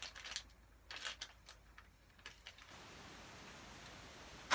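Light crinkling and clicking of a small clear plastic parts bag being handled on a workbench, then a faint steady hiss, with one sharp tap at the very end.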